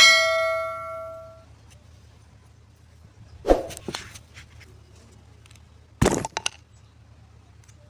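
Aluminium alternator housing and rotor handled on a workbench: a sharp metallic clang that rings on one steady tone for about a second and a half, then two bursts of clattering knocks about three and a half and six seconds in.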